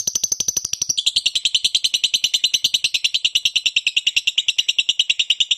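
Pet parrot chirping in a rapid unbroken string, about ten high chirps a second, the pitch dropping a step about a second in.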